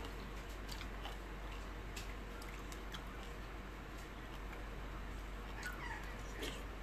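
Quiet eating sounds: fingers picking at tomato and greens in a bowl of broth, a few small clicks, and a wet squish as a tomato slice is bitten near the end, over a steady low hum.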